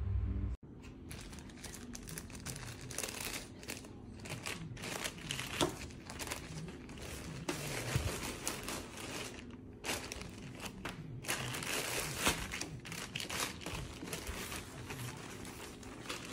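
Clear plastic bag crinkling and rustling in irregular bursts as hands handle it and pull clothes out of it. Background music cuts off about half a second in, before the crinkling starts.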